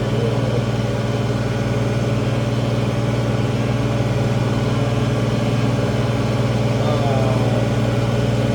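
International Harvester 1566 tractor's turbocharged six-cylinder diesel engine running steadily under load, pulling a field cultivator.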